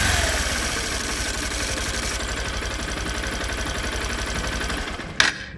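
Honda Bros 160 single-cylinder motorcycle engine settling from a rev into a steady idle, running with the internal engine noise that came up after its worn piston was replaced. Near the end a sharp click, after which the engine sound drops away.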